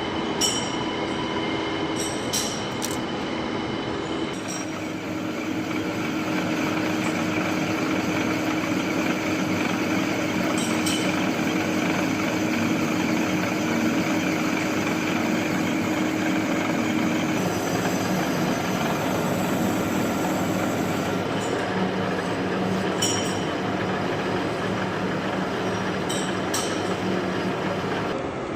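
Lathe machining a lock slot into a steel gearbox shaft: a steady metal-cutting and machine-running din with a few held tones that change twice, and scattered sharp clicks.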